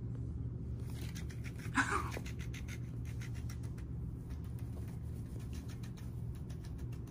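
An electric flapping fish cat toy wriggling in a cat's grip, with a rapid run of fine clicks and scuffs over a steady low hum. One short, louder sound that bends in pitch comes about two seconds in.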